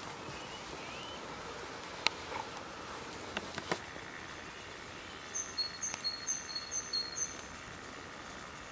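Steady outdoor ambience with a small songbird singing a quick phrase of about five repeated high two-note chirps a little past the middle. A few sharp clicks sound in the first half.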